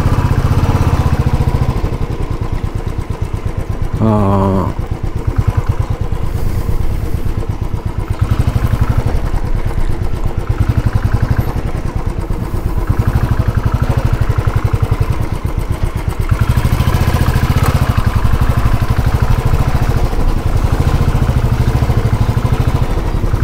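Motorcycle engine running under way, its sound swelling and easing with the throttle. A brief pitched tone, like a horn, sounds about four seconds in.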